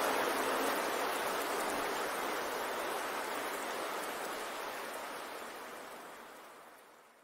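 Steady rushing noise, the masking track of a subliminal audio, with no tone or rhythm in it; it fades out toward the end.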